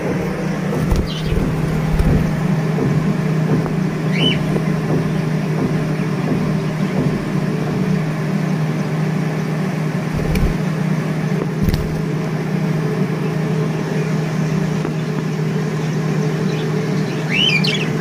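Steady low mechanical hum throughout, with a few high chirps from aviary birds about four seconds in and a cluster of chirping near the end. Now and then there is a soft low thump.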